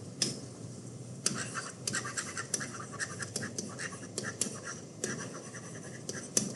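Stylus tapping and scratching on a tablet screen as words are handwritten: a tap at the start, then from about a second in a quick run of short scratchy strokes and clicks.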